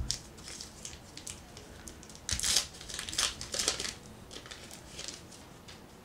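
Baseball card pack wrapper being torn open and crinkled as the cards are pulled out, in irregular crackly rustles that are loudest in the middle.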